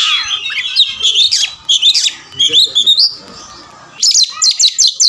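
Oriental magpie-robin singing: a varied run of whistles mixed with harsh, raspy notes, then after a short pause about three seconds in, a fast string of repeated sharp notes.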